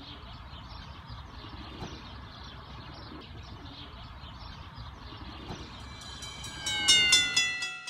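Freight train of boxcars rolling past, a steady rumble. About six seconds in, a louder metallic ringing of several high tones comes in and slowly falls in pitch, with repeated clicks.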